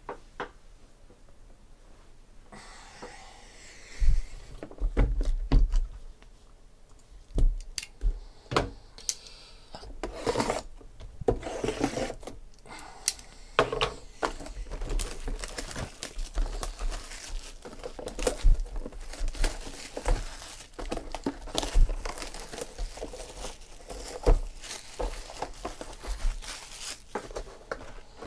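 Plastic wrapping crinkling and tearing as sealed trading card boxes are unwrapped and handled, starting a couple of seconds in, with scattered sharp knocks of the boxes against the table.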